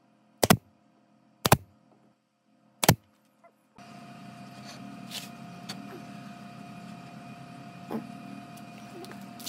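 Three sharp knocks about a second apart, then from about four seconds in a power tool's motor starts and runs steadily with a hum.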